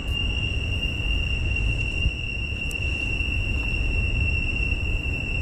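Insects singing in one steady, unbroken high-pitched tone, over a low rumble.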